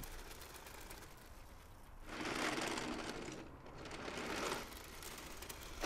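Radio-controlled model Mini Cooper rolling over gritty tarmac: a crunching, rustling rolling noise that swells about two seconds in, breaks off briefly, returns and fades before the end.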